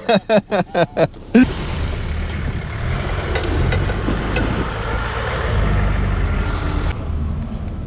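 A 4x4 off-roader's engine running steadily as it drives off-road, a low drone that comes in about a second and a half in.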